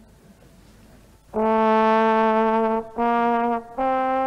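Brass music: after a short lull, a slow melody of long held notes begins about a second in, each note a little higher than the last.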